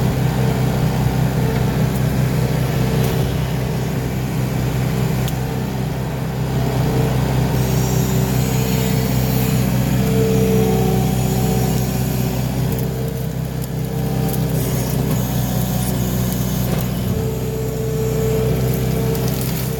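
Skid steer loader's engine running steadily under work, with a higher-pitched tone that comes and goes over it.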